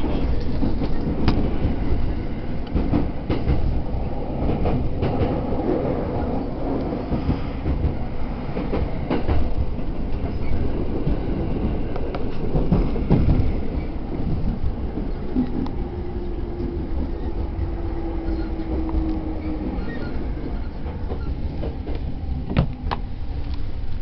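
Commuter train running, heard from inside the passenger car: a steady low rumble with scattered clicks, and a faint steady whine for a few seconds past the middle.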